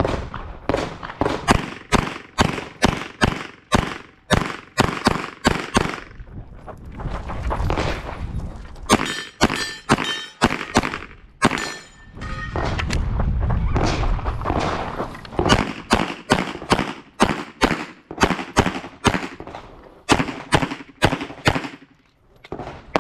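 Glock 34 9mm pistol firing fast strings of shots on a practical-shooting stage, dozens of rounds in quick pairs and runs, with two short breaks about 7 and 13 seconds in.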